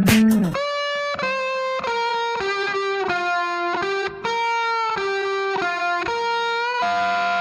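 Background music: a single melodic line of held notes, changing about twice a second, with no drums.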